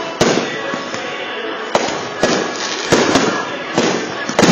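Aerial fireworks shells bursting: about seven sharp bangs at uneven intervals over a continuous background of crackle and noise.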